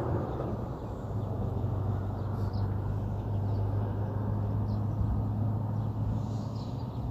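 Outdoor background noise: a steady low hum with a few faint, short, high bird chirps.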